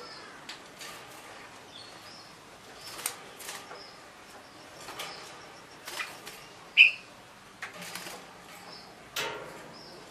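Caged juvenile red-whiskered bulbul giving short, scattered chirps while still learning to sing, with one loud sharp chirp about seven seconds in. Short knocks and rustles of the bird moving about the cage come every second or two.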